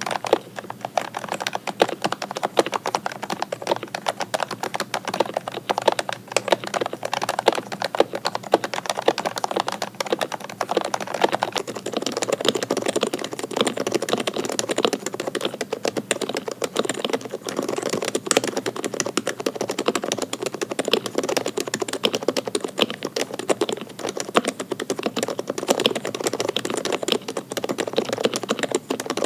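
Fast, continuous typing on a custom-built mechanical keyboard, a dense stream of key clacks. The clacks sound deeper from about twelve seconds in.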